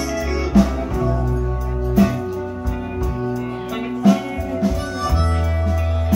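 Live blues band playing an instrumental stretch at a slow beat, with drums, keyboard and electric guitar. A harmonica comes in about five seconds in.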